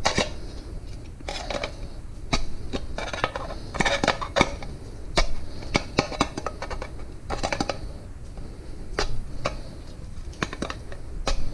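A 10-ounce Café Bustelo coffee can being pierced with the pointed church-key end of a pair of pliers, punching vent holes around its top. Irregular sharp metallic clicks and scrapes come singly and in quick clusters.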